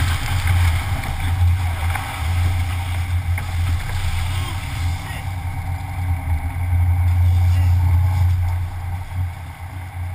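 Sportfishing boat's inboard engines droning steadily, under a wash of wind and churning seawater.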